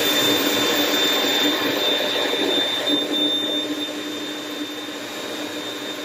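Kenwood food processor motor running steadily as it blends a chunky herb sauce, with a steady hum and whine over the whirr. It gets somewhat quieter about three seconds in.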